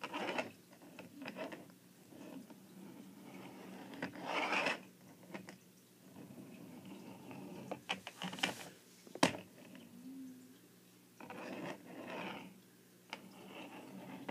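Plastic wheels of a small Hardee's Nicktoons rolling toy figure running across a tabletop as it is pushed back and forth by hand, in several short bursts of rolling noise. There is one sharp click about nine seconds in.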